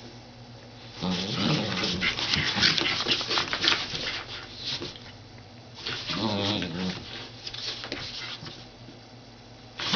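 Scottish terrier growling in play with its head inside a cardboard box, in two spells, with cardboard scraping and rustling as it paws and pushes at the box.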